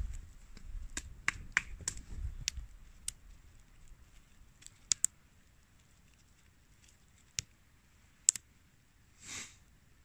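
A series of sharp, irregular clicks and snaps, closely spaced in the first three seconds and then sparser, with the loudest snaps about five and eight seconds in. A low rumble fades out in the first few seconds, and a short soft whoosh comes near the end.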